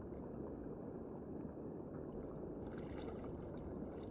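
Steady low underwater rumble, with faint crackling ticks from about three seconds in.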